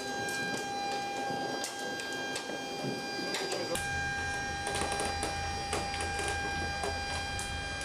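Working noise in an aircraft cargo hold: a steady high-pitched whine with scattered metallic clicks and knocks. A low hum joins about four seconds in.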